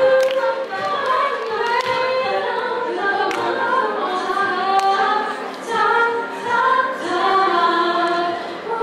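Three teenage girls singing in close harmony through microphones, unaccompanied. A sharp click sounds about every second and a half.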